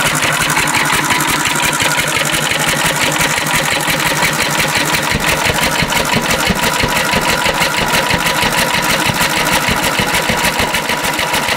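Antique Cushman Cub stationary engine running steadily on paraffin lamp oil, with a fast, even firing beat, the mixture set rich.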